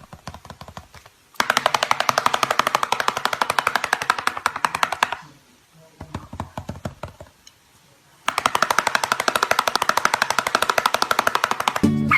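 A rapid rattle of sharp clicks, about a dozen a second, in two bursts of about four seconds each with a short pause between.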